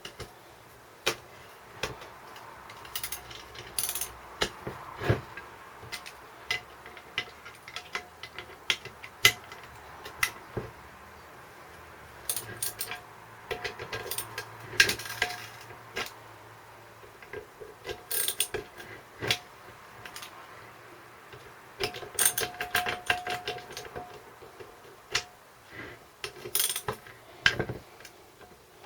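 Irregular clicks, clinks and knocks of hand tools and metal engine parts being handled while a small Briggs & Stratton engine is taken apart. Now and then a part rings briefly.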